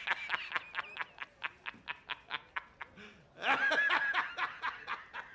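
Laughter in a run of quick, evenly spaced bursts that fade away, then louder again about three and a half seconds in.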